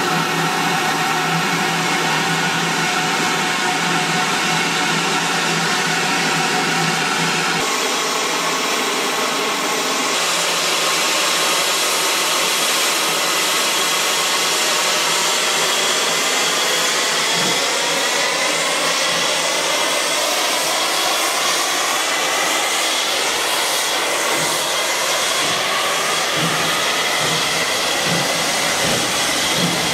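Steam hissing loudly and steadily from an LSWR T9 4-4-0 steam locomotive standing in a station, with ringing tones in the hiss. The tones change about eight seconds in and then slowly waver in pitch.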